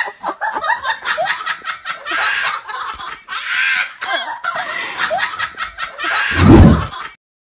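Laughter: a quick run of snickering and chuckling, with a loud low boom about six seconds in, after which the sound cuts off abruptly.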